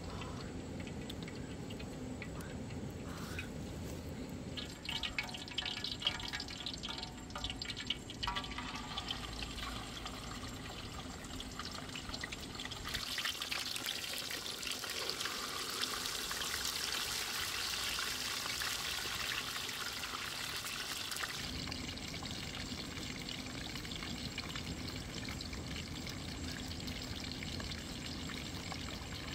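Water splashing and trickling as whole fish are rubbed and rinsed by hand, loudest for about eight seconds in the middle. Before that come a few seconds of light knocks and rustles as the fish are handled.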